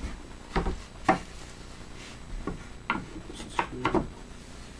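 Handling noises: several sharp wooden knocks with some rubbing as wooden toy-castle pieces are pushed together and a cordless drill is put down on a wooden workbench.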